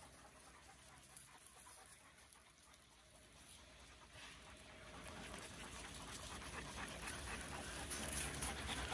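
Near silence for about four seconds, then a dog panting close by, growing steadily louder toward the end.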